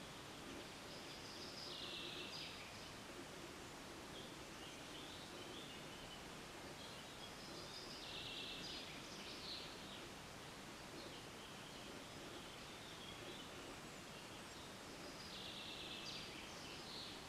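Quiet room tone: a steady faint hiss, with a soft higher hiss that swells and fades three times, about seven seconds apart.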